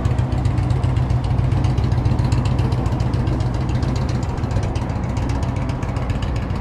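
A vehicle engine running close by: a loud, steady low rumble with a fine, rapid pulse.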